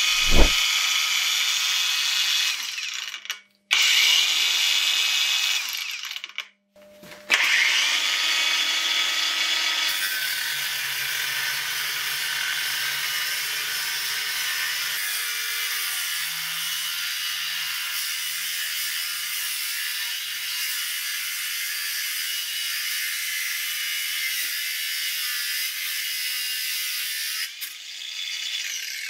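Cordless angle grinder running on a DIY 18650 battery pack: two short runs, then cutting a square steel tube for about twenty seconds and stopping near the end. The motor holds a steady pitch under the cut.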